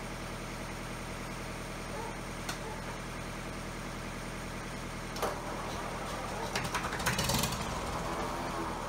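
Old crawler tractor's diesel engine running steadily, with a click about five seconds in and a louder, rougher stretch of running about seven seconds in as smoke puffs from the exhaust stack.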